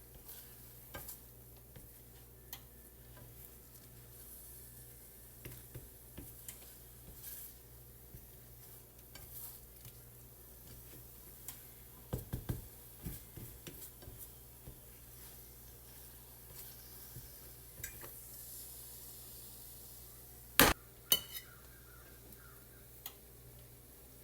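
Kitchen work at the stove: utensils and pans clinking and knocking over a faint sizzle of bacon frying. There is a cluster of clatter about halfway through, and the loudest sounds are two sharp knocks near the end.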